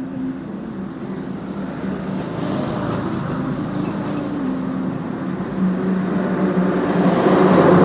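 A motor engine running steadily and drawing closer, growing louder over the last few seconds.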